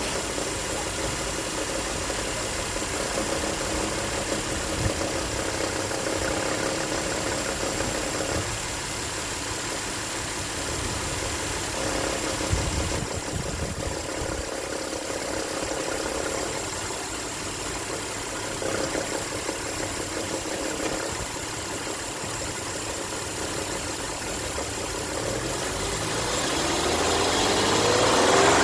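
Volkswagen Touareg NF 3.6 FSI VR6 engine idling, heard under the hood with the knocking the owner is chasing. Near the end the revs begin to rise.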